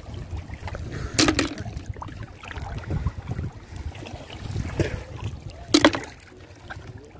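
Sea water sloshing and lapping around people wading chest-deep, with wind rumbling on the microphone. Two brief sharp sounds stand out, about a second in and near six seconds.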